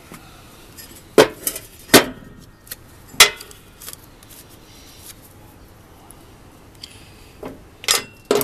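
Metal tools and parts clinking and knocking together as they are handled: a few separate sharp clinks, the loudest about a second in, at two seconds and at about three seconds, then a couple more near the end.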